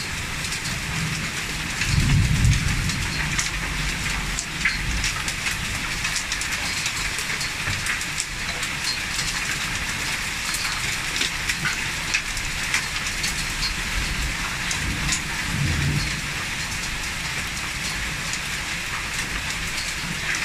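Heavy rain pouring steadily, with scattered sharp ticks of drops striking close by. Low rumbles swell about two seconds in and again around fifteen seconds in.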